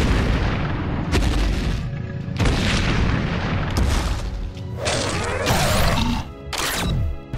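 Dubbed fight sound effects: a run of heavy booms and crashing impacts, several separate bursts in a row, over background music.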